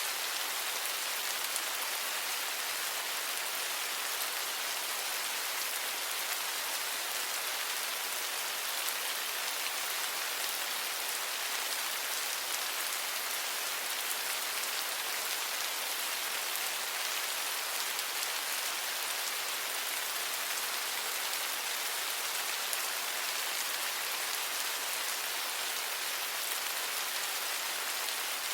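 Steady rain falling, an even hiss with the fine patter of drops hitting a surface.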